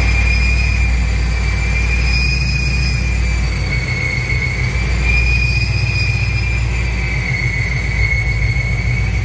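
Procharged 4.6-litre four-valve V8 of a Ford Mustang Mach 1 idling. A steady high whine from the ProCharger D1SC supercharger wavers slightly in pitch over the low engine rumble.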